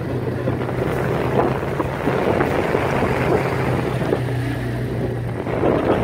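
Small motorboat's engine running with a steady low drone, with water rushing and splashing along the hull and wind buffeting the microphone.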